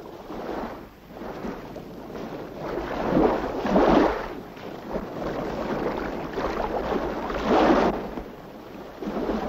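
Waves washing, a rushing noise that swells in two surges, about four and seven and a half seconds in, over a steady low rumble.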